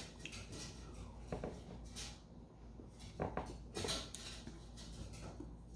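Faint sounds of a person sipping and swallowing an energy drink from a small stemmed glass. A few brief soft sounds come with quiet between them, including small knocks as the glass goes back down to the table.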